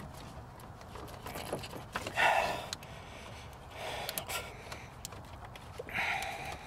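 A man breathing heavily, three loud breaths about two seconds apart, with faint clicks and rubbing from hands working the rubber radiator hose and its spring clamp.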